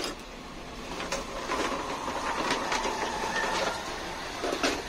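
Lumps of charcoal clinking and clattering as they are taken from a paper sack and dropped into a grill built of hollow clay bricks, a few faint clicks over a steady background hum.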